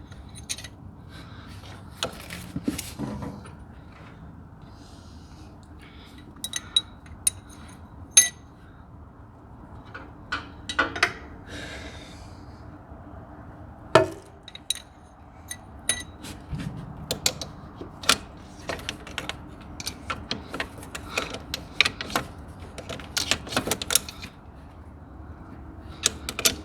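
Irregular metallic clinks and taps of hand tools and valve-train parts (pushrods, rocker arms) being handled on a three-cylinder diesel engine, over a faint steady hum.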